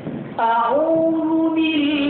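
A reciter's voice chanting Qur'anic recitation in the melodic tajwid style. It comes in about half a second in, glides up, and holds one long drawn-out note.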